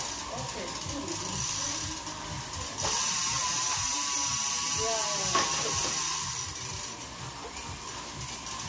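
Road bike's drivetrain spinning, chain and rear hub whirring and ratcheting as the pedals are turned, louder for a couple of seconds in the middle.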